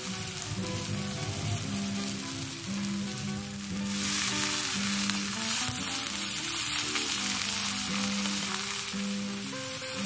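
Water spinach sizzling as it stir-fries in an aluminium pan over a wood fire, stirred with a stick; the sizzle grows louder about four seconds in as liquid is poured into the hot pan. Background music plays underneath.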